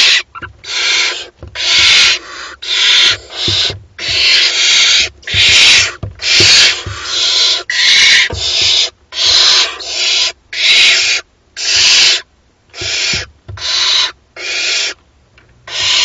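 Barn owl chicks giving their hissing, snore-like begging calls in a steady run, about one harsh hiss a second: the nestlings asking to be fed.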